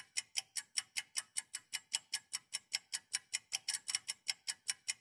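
Clock ticking fast and evenly, about five ticks a second, laid in as a waiting effect: time dragging while the men wait.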